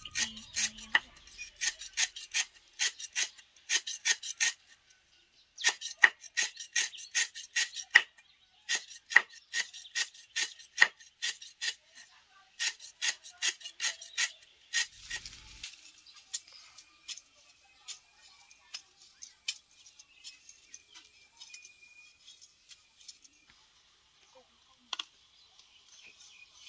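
A cleaver chopping on a thick wooden chopping board, mincing sliced stalks in quick runs of about three strokes a second with short pauses. The strokes grow sparser and fainter in the second half.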